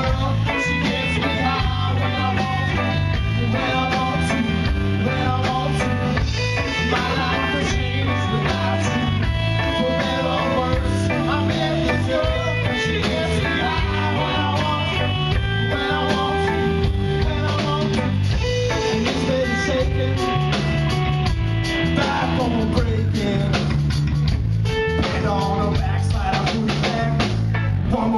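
Live rock band playing: electric guitars, bass guitar and drum kit, with a man singing lead vocals.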